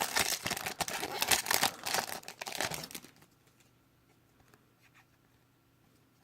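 2015 Prizm Draft Picks football card pack wrapper crinkling and tearing as a pack is ripped open, stopping about three seconds in and leaving only a few faint ticks.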